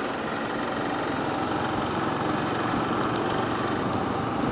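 Yamaha R15 V3's 155 cc single-cylinder engine running steadily under a constant wash of road and traffic noise while the motorcycle is ridden.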